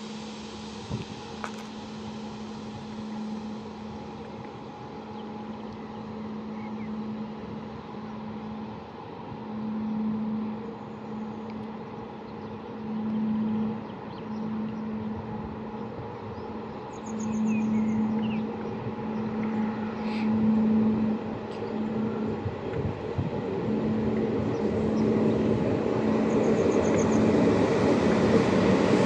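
A 060-EA (LE 5100 kW) electric locomotive with its passenger train at a station. It gives a steady hum with a low tone that swells and fades every second or so, and the train noise grows louder toward the end.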